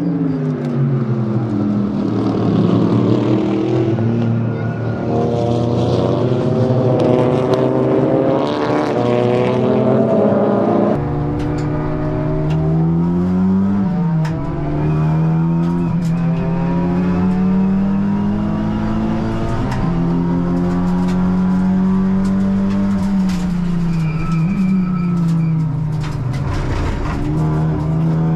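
Honda Civic Type R (FL5) race car's turbocharged four-cylinder engine running at racing speed. The engine note climbs and drops back several times as it shifts gears, and the sound changes abruptly about eleven seconds in.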